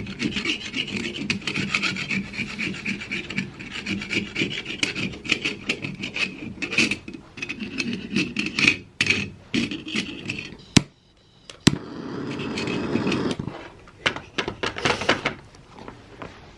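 Hand scraping against wood in rapid back-and-forth strokes. About eleven seconds in it pauses for two sharp clicks, then the strokes start again.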